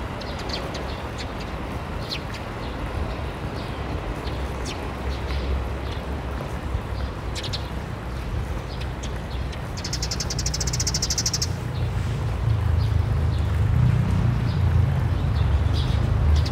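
Outdoor ambience: small birds chirp now and then over a low, steady rumble that grows louder near the end. About ten seconds in, a rapid high buzzing trill lasts about a second and a half.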